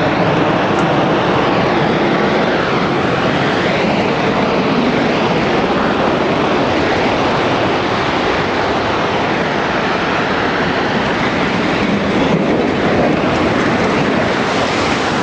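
A World Trade Center tower collapsing: a loud, continuous roar like a passing freight train, holding steady for about fifteen seconds.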